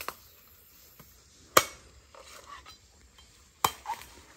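Machete blows chopping into the husk of a green jelly coconut to open it: three sharp strikes over a few seconds, the second the loudest.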